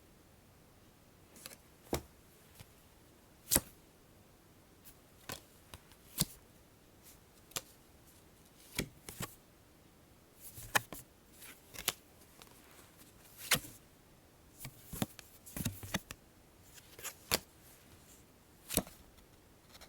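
Playing cards being drawn one at a time: a series of short, crisp card snaps and slides at irregular intervals, some single and a few in quick clusters, with quiet between.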